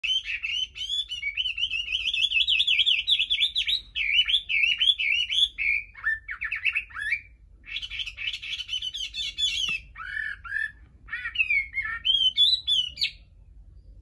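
Caged Chinese hwamei singing a long, varied song of fast warbled trills and whistled phrases, with brief pauses, stopping about a second before the end.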